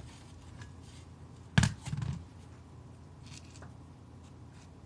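A single dull thump about a second and a half in, with a little quieter handling noise just after; otherwise quiet room tone.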